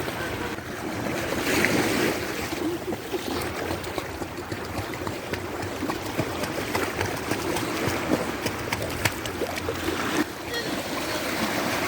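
Water sloshing and splashing steadily, with many small splashes, as a small dog swims.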